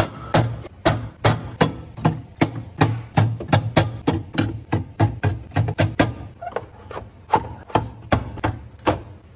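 Small plastic bottles and yogurt cups set down one after another on a refrigerator shelf: a quick run of sharp clacks and taps, about three a second, that stops near the end.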